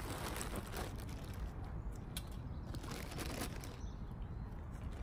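Plastic shopping bag crinkling and rustling in irregular bursts as it is handled and opened, over a steady low rumble.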